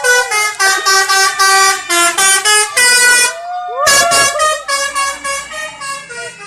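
'Telolet' bus horn: a set of tuned air horns playing a quick melody of short notes, with a sliding note about four seconds in and the tune growing fainter near the end.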